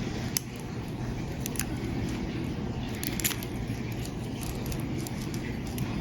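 A lock pick and tension tool working inside a Master Lock padlock: small irregular metallic clicks and scrapes as the pins are raked. The clicks sit over a steady low hum.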